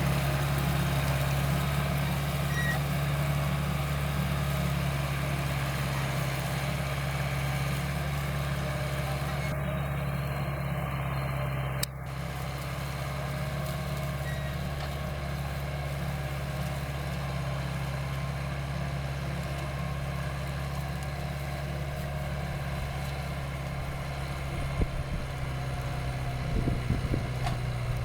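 LS Plus 80 tractor's MWM diesel engine running steadily under load while pulling a five-shank JAN Jumbo Matic implement, with some irregular crackling near the end.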